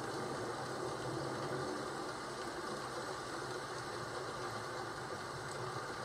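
Steady rain falling, an even hiss without change or thunder.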